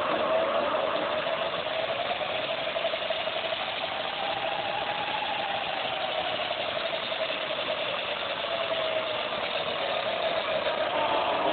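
36-volt DC electric motor on a converted dirt bike running under power, spinning the free rear wheel through a belt drive: a steady whine that rises a little in pitch midway and falls back near the end.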